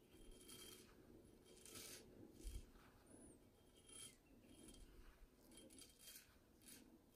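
Faint short raspy strokes of a Hults Bruk axe blade scraping lathered beard stubble off the neck, about one to two strokes a second, with a soft low thump about two and a half seconds in.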